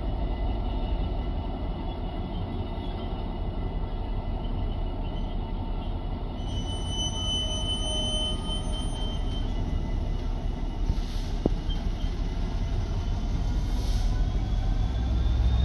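Loaded double-deck car-carrier freight wagons rolling past at steady speed, their wheels rumbling on the rail, with thin high wheel squeals at times, the clearest about halfway through.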